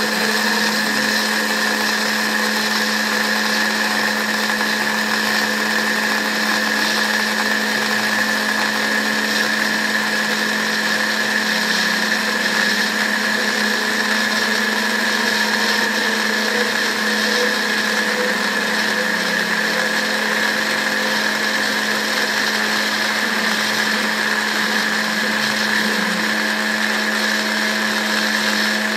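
Small CNC router spindle running steadily with a constant high whine while its end mill cuts a pocket in foam board; a lower tone shifts slightly now and then as the machine moves.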